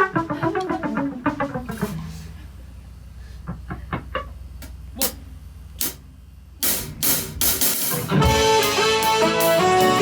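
Live band playing: a guitar runs down a phrase of plucked notes, then only scattered drum hits, and near the end cymbal crashes bring in the full band with sustained chords.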